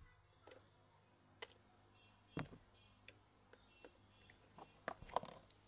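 Faint, scattered clicks and pops of homemade pink slime being poked and pressed with fingers, about eight in all, the loudest near the middle.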